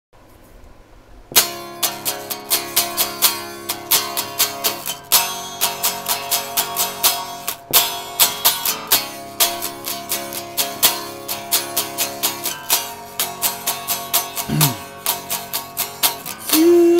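Telecaster-style electric guitar strummed in a steady rhythm of chords, about three strums a second, starting about a second in.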